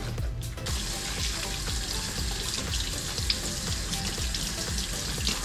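Kitchen faucet running, its stream splashing over a cleaned sand dab being rinsed in the sink; the steady hiss of water starts less than a second in. Background music plays underneath.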